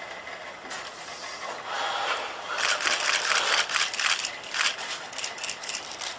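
Kawada HRP-4 humanoid robot's joint motors running as it swings its arms and shifts its body, a quick run of clicking and rattling that starts about two seconds in and thins out near the end. A faint steady high tone runs underneath.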